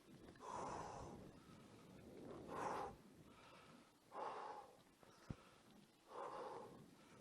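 A rider breathing hard while pedalling, four heavy breaths about two seconds apart, with a single sharp click a little after five seconds.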